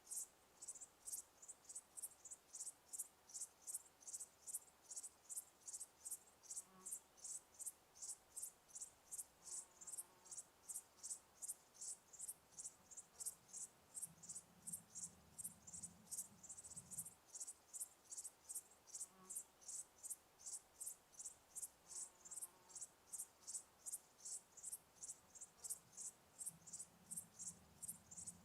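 Cricket chirping in a steady, even rhythm, about two to three high-pitched chirps a second, with a faint low hum coming in twice.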